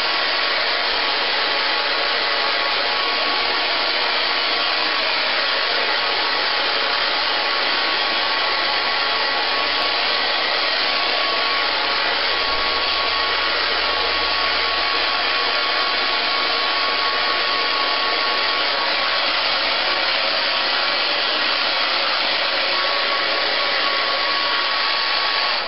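Handheld hair dryer blowing steadily at close range, drying a small wet dog after its bath, with a faint steady whine above the rush of air. It cuts off suddenly at the end.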